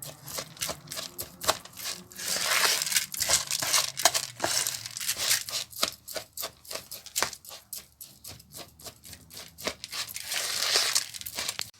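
Stuffing of raw rice, minced meat and spices being turned over and mixed in a bowl: rapid clicking and rustling, with two longer, louder stretches of churning.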